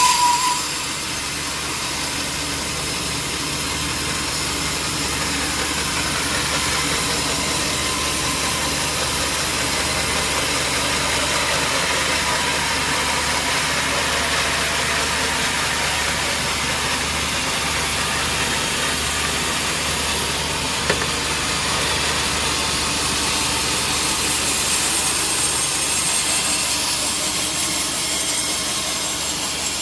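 Sawmill machinery running steadily, a continuous mechanical noise, with a single sharp knock about 21 seconds in.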